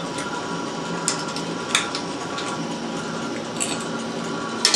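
Litton glass autolathe running at the end of a cycle: a steady mechanical hum with a few short sharp clicks from its mechanism, the loudest just before the end.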